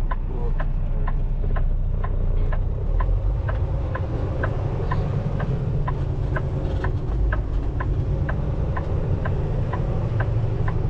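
Kenworth T680 semi truck running under way, a steady low engine and road rumble heard from inside the cab, with the turn signal ticking evenly about twice a second through a turn.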